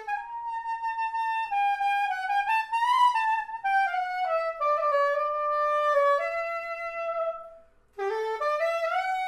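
Straight soprano saxophone playing a slow solo melody, one note at a time, with some notes sliding in pitch. A long held note fades away about three-quarters of the way through, and after a brief pause the melody starts again.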